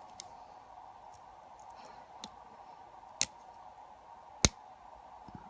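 Lock pick working the pins of a lock held in a vise: a few sharp, separate metallic clicks, the two loudest about three and four and a half seconds in, over a faint steady hum.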